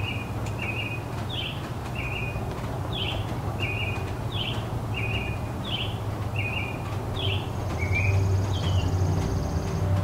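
A songbird repeating a two-note phrase, a lower note then a higher down-slurred note, about once a second. Underneath is a steady low hum of distant city traffic that swells near the end.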